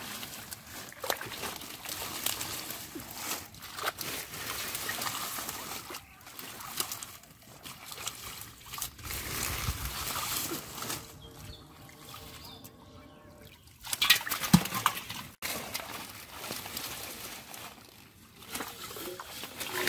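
Hands rummaging in shallow muddy water among water hyacinth: water sloshing and trickling as clumps of plants and roots are pulled up, with a few sharper splashes about fourteen seconds in.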